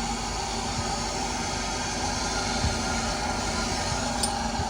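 Hyundai Santro Xing's four-cylinder petrol engine idling steadily on a cold start. It runs smoothly, with its misfire cured after a throttle body clean and new ignition coil wiring.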